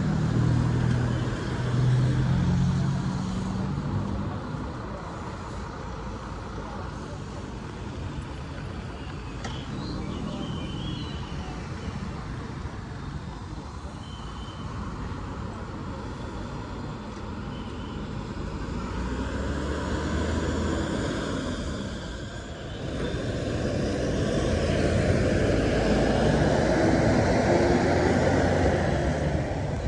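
Road traffic: motor vehicles running and passing by, with an engine hum at the start and a louder vehicle going past near the end.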